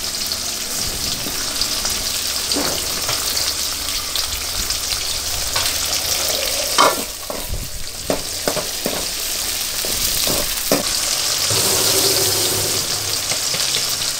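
Okra and tomato pieces sizzling steadily in hot oil in a steel kadai. From about halfway through, a steel spoon stirring them clicks and scrapes against the pan several times.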